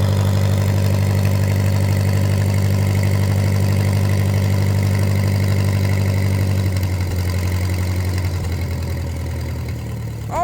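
1965 Lincoln SA-200 'red face' welder's engine running steadily just after a cold start. About seven seconds in, its steady note changes and eases down slightly as the idler switch starts to bring it off high idle.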